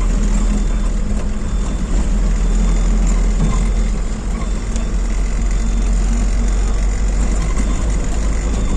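Car driving, its engine and road noise heard from inside the cabin as a steady low rumble.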